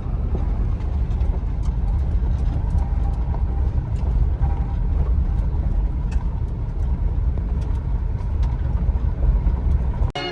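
Truck driving on the road: a steady low rumble of engine and road noise, with a few faint ticks, cut off abruptly near the end.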